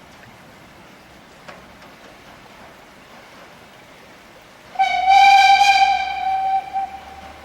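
Harz narrow-gauge train sounding one high whistle note about five seconds in, held for about two seconds before fading.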